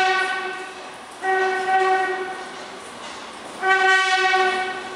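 New York City subway train horn sounding three long, steady blasts as the 5 train approaches the station, over the rumble of the oncoming train. The first blast is already sounding at the start; the others begin about a second and a quarter and three and a half seconds in.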